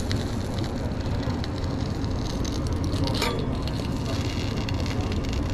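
Steady low rumble of background machinery with light clicks, and a brief rasping scrape about three seconds in.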